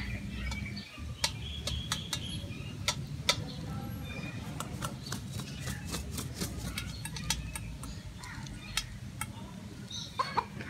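Hens pecking dog food from a steel bowl: sharp, irregular ticks and clicks, several a second, with faint bird chirps behind.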